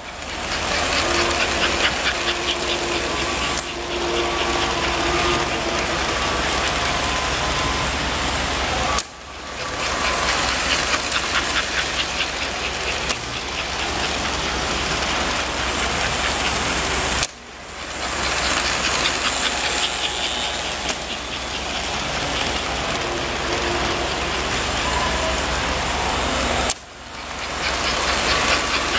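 American Flyer S-gauge model trains, pulled by Atlantic steam locomotives, running on a layout: a steady motor hum with rapid mechanical clicking and wheel clatter on the track. The sound drops out sharply three times and builds back up each time.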